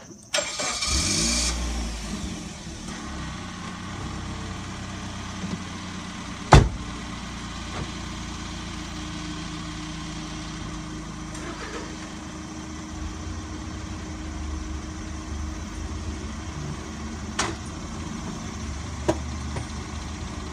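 Hatchback car engine starting: it catches almost at once, flares up briefly, then settles into a steady idle. A car door shuts with one sharp bang about six and a half seconds in.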